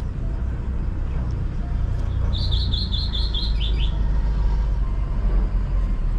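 A bird calls a quick run of about seven high chirps, the last few dipping slightly lower, over a steady low rumble.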